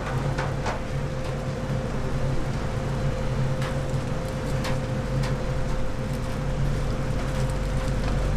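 Steady mechanical hum with one constant tone running over it. A few light clicks and ticks are scattered through, typical of charcoal and tongs at a grill.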